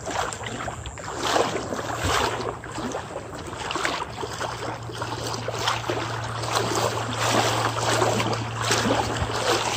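Legs wading through knee-deep floodwater, sloshing and swishing with each stride in an irregular rhythm.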